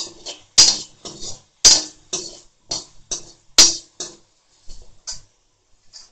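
Steel slotted spoon scraping and knocking against a metal kadai while stirring frying chopped onions, about two strokes a second, each with a brief metallic ring.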